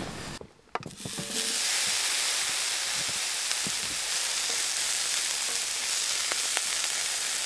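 Cubed smoked brisket sizzling in a hot frying pan, the sizzle starting about a second in and running steadily with a few small pops.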